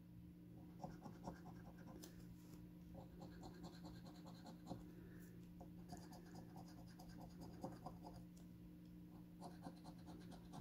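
A coin scratching the coating off a scratch-off lottery ticket: faint, rapid short strokes in several spells with brief pauses between them.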